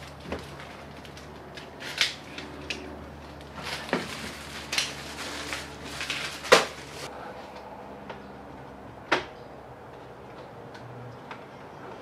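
Scattered clicks and light knocks of plastic interior trim being handled and set down while moving around a stripped-out car interior. The sharpest knock comes about six and a half seconds in and another near nine seconds, over a faint low hum.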